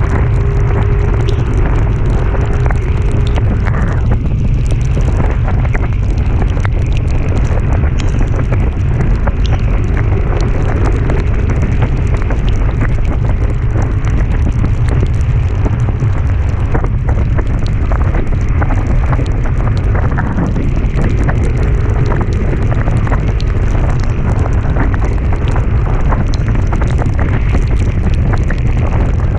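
Heavy wind buffeting on the microphone of a moving vehicle climbing uphill, a dense steady low rumble, with many sharp ticks scattered throughout.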